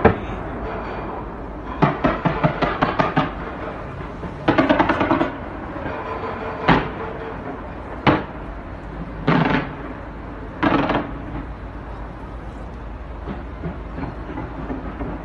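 Fireworks going off: several bursts of rapid crackling pops and two single sharp bangs around the middle, over a steady low background rumble.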